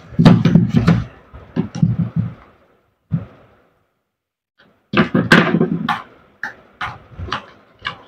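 Clicks, knocks and rattles of a DeWalt DW801 angle grinder's plastic housing being handled on the workbench with a screwdriver as it is opened up. The knocks come in two dense clusters, one at the start and one about five seconds in, with a silent pause between.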